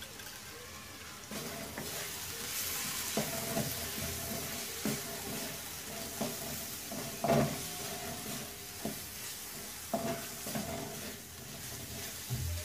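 Spice paste with tomato sizzling in hot oil in a pan while a spatula stirs and scrapes it, with several light knocks of the spatula against the pan; the sizzle picks up about a second in. This is the masala being sautéed (kosha) until the tomato softens.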